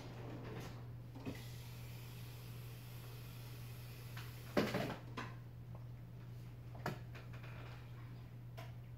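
A person eating: faint chewing and mouth sounds with a few light clicks and knocks, the loudest about halfway through, over a steady low hum.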